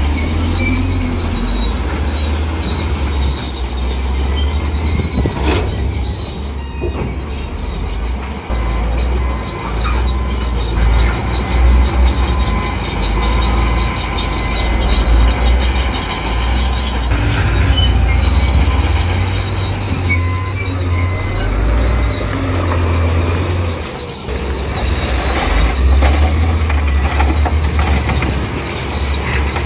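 Heavy diesel earthmoving machinery working: a deep engine rumble that rises and falls, with a thin metallic squeal above it.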